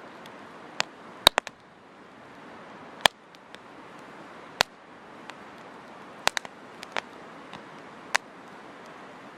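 Wood campfire crackling: sharp, irregular pops of burning wood, a few in quick clusters, over a steady soft hiss of the flames.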